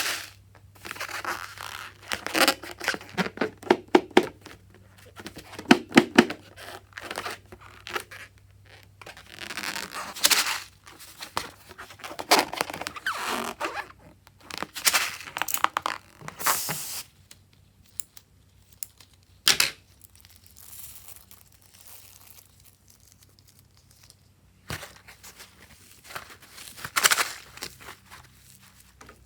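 Hands working fluffy slime, with sticky stretching, tearing and crackling sounds in irregular bursts separated by short pauses.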